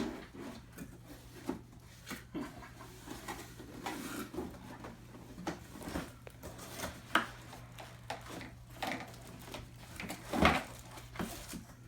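Laptop packaging being handled during unboxing: scattered rustles, scrapes and light knocks of cardboard and wrapping, with a sharper knock about ten seconds in, over a faint steady low hum.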